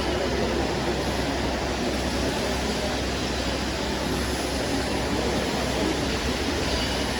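MIG (CO2) welding arc crackling steadily at an even level throughout, with a low electrical hum beneath.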